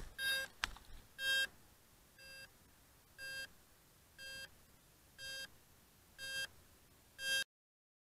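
Short electronic beeps from the crashed Blade 350 QX quadcopter, repeating about once a second, eight in all. The sound cuts off abruptly near the end.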